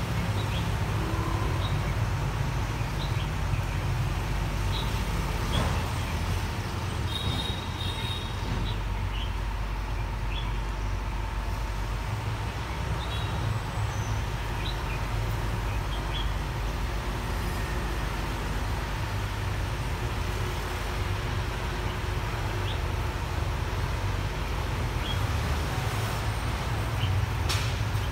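Steady low rumble of city street traffic, with faint short high ticks scattered through it.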